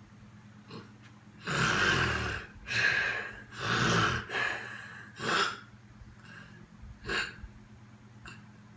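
A person snoring heavily in sleep: a run of five loud, rasping snorts and gasping breaths packed into about four seconds, then a weaker one about a second and a half later.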